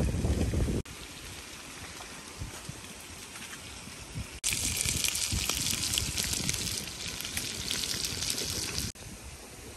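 Water running and splashing. It changes abruptly about a second in, and again near the middle, where a loud hissing spray sets in and then cuts off near the end.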